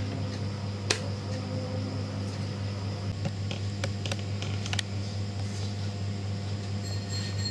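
Light plastic clicks as the WPL C24 RC crawler's camper shell is fitted onto the truck body: one sharp click about a second in, then a few lighter ones between about three and five seconds in, over a steady low hum.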